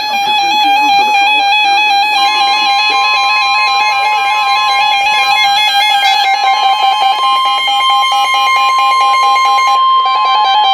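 NOAA Weather Radio alert: a warbling electronic alarm sounds throughout, and about two seconds in a steady 1050 Hz warning tone joins it and holds, signalling a warning broadcast to follow.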